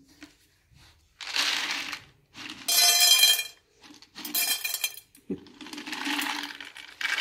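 Dry cat kibble rattling out of a plastic jar into a cat's food bowl in four or five short pours.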